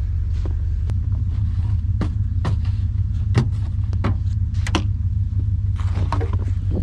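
Truck engine running with a steady low rumble, with scattered short clicks and knocks over it.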